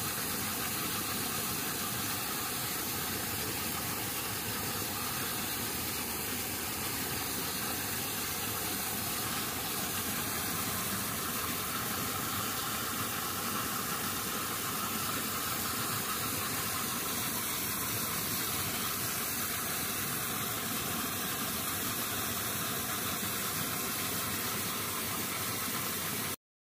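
A steady, even rushing hiss that cuts off suddenly near the end.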